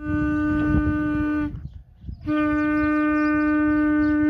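A horn blowing two long, steady notes on the same pitch: the first lasts about a second and a half, and after a short break the second starts about two seconds in and is still sounding at the end.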